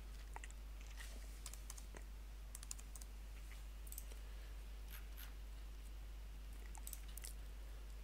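Faint computer mouse clicks and a few keyboard keystrokes, scattered and irregular, over a steady low hum.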